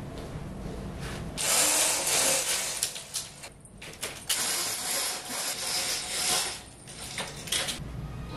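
Roller window shade being raised by its pull chain, the chain running through the clutch mechanism in several spells of one to two seconds.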